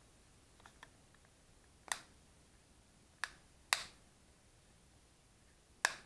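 Back cover of a ZOPO 3X smartphone being snapped onto the phone: four sharp clicks as its clips catch, a second or two apart.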